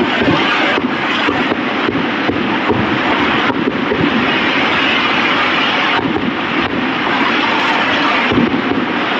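Aerial fireworks going off: a dense, unbroken stream of bangs and crackling, with sharper single bangs standing out every second or so.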